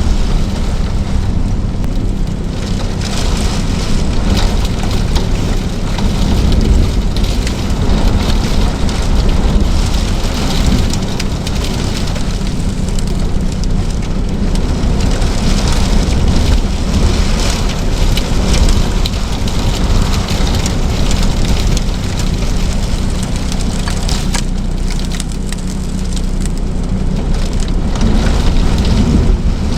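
Blizzard wind blasting across the microphone, a loud rushing noise that swells and eases in gusts.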